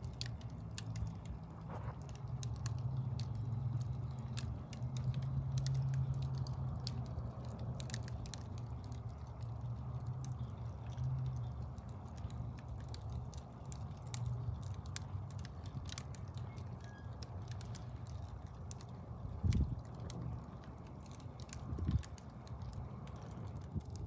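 Wood logs burning in a fireplace, crackling and popping irregularly over a low, steady rumble of flame. Two louder low thuds come in the last few seconds.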